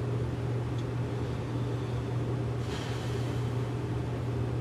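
Microwave oven running with a steady low electrical hum, a brief soft hiss about two and a half seconds in.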